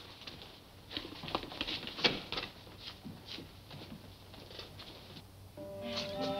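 Footsteps and shuffling of several men walking out across a room, a scatter of short knocks. Near the end, background music comes in with held notes.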